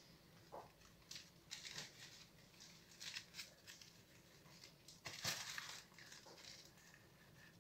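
Plastic cling film crinkling faintly in short, scattered rustles as hands roll and tighten a bread log wrapped in it; the loudest rustle comes about five seconds in.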